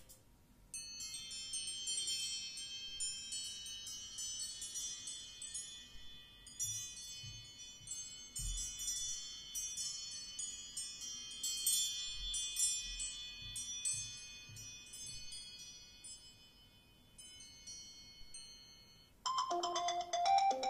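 An iOS 7 ringtone playing from an iPhone: a tinkling, bell-like chime melody of many quick, high notes that starts about a second in and rings out toward the end. A second, lower-pitched ringtone starts just before the end.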